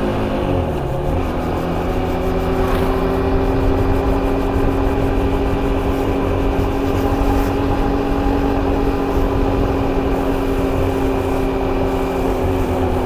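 KTM Duke 250's single-cylinder engine running at steady revs while riding. About a second in, the revs drop briefly and pick up again, then hold steady.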